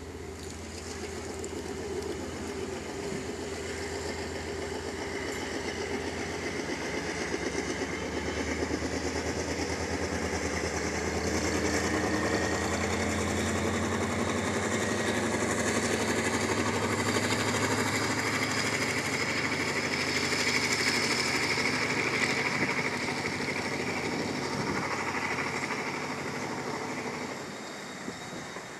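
Pakistan Railways ZCU30 diesel-electric locomotive running under power as it hauls an express train past. It grows louder as it approaches, is loudest through the middle, and fades near the end as the coaches roll by.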